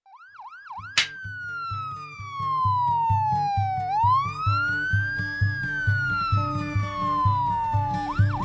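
Music track opening with a siren effect. A fast warbling siren and a sharp hit about a second in are followed by slow falling and rising siren sweeps over a steady beat of about two pulses a second.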